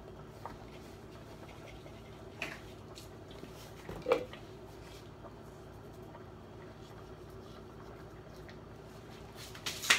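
A steady low kitchen hum with a few light knocks of utensils or cookware: a small one about two and a half seconds in, the loudest about four seconds in, and another just before the end.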